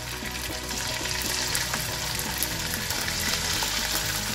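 Marinated chicken pieces sizzling steadily in hot oil in a wok as more pieces are dropped in.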